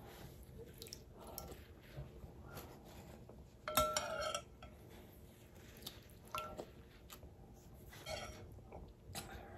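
A metal spoon clinks and scrapes against a glass bowl while scooping a thick papaya and coconut purée, with faint sounds of eating in between. The loudest clink, with a short ring, comes about four seconds in, and a lighter one follows a couple of seconds later.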